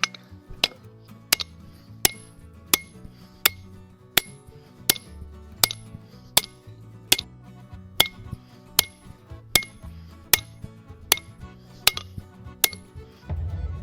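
Blacksmith's hammer striking hot steel on an anvil in a steady rhythm, about one and a half ringing blows a second, each followed by a lighter tap, drawing out the bit of an axe head with the flat peen. Background music plays underneath; the hammering stops near the end as the music swells.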